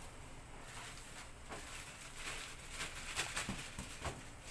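A thin plastic bag rustling and crinkling in short bursts as it is handled and leafy greens are pulled out of it.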